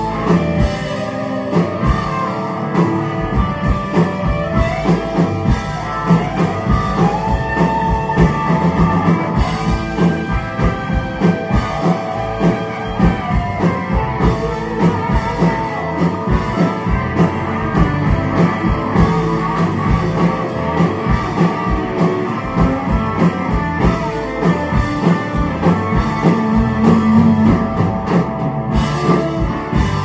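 Live rock band playing: electric guitars over bass and a drum kit keeping a steady beat.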